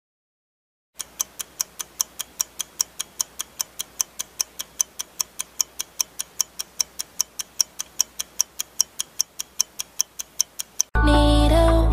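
Countdown-timer clock ticking sound effect: a quick, even ticking, several ticks a second, starting about a second in. It stops about a second before the end and loud pop music cuts in.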